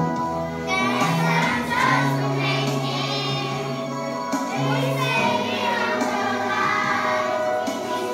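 Children's choir singing a song over instrumental accompaniment with a steady bass line.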